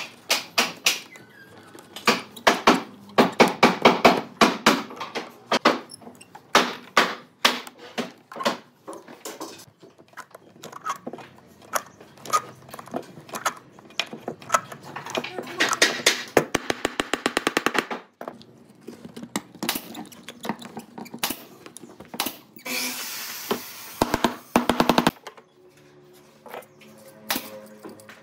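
Quick-release bar clamps and a screw C-clamp being worked on stacked wood strips for a bent lamination: sharp knocks and clacks, with quick runs of ratcheting clicks as the clamps are tightened twice, and a short rasping burst near the end.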